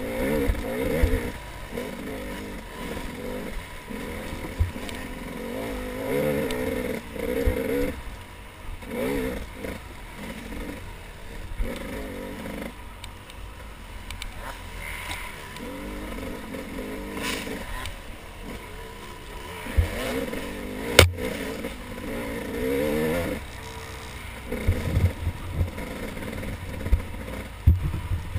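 Dirt bike engine heard from on the bike, revving up and dropping back in short runs as the throttle is worked on a bumpy trail. Knocks and rattles from the bike hitting the ground come through, with one sharp knock about three-quarters of the way through.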